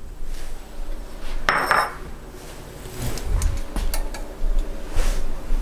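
Metal tongs clinking and scraping against a stovetop grill and a bowl as grilled pork is lifted off, with scattered clicks and a short scrape about a second and a half in.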